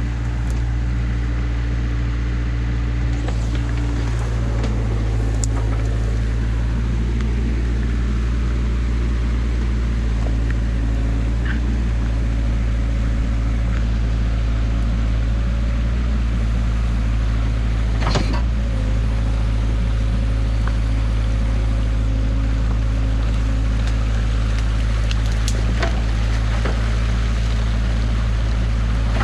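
New Holland mini excavator running steadily under load, a deep engine hum with a higher hydraulic whine that shifts in pitch a few times as the arm and bucket work. A single sharp knock comes about two-thirds of the way through.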